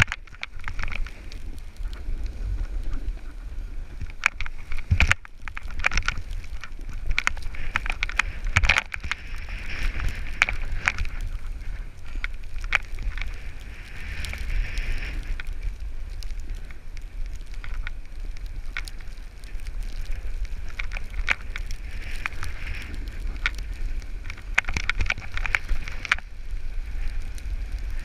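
Snowboard sliding and scraping through powder snow, with a steady low wind rumble on the microphone and occasional sharp knocks.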